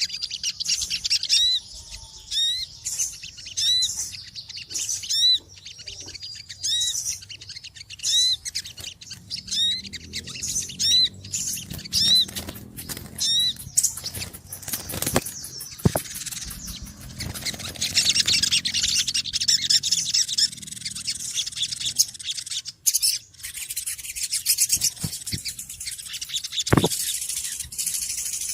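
Small birds chirping noisily: a run of short, hooked chirps roughly once a second, giving way about halfway through to a dense, busy twittering chatter from several birds.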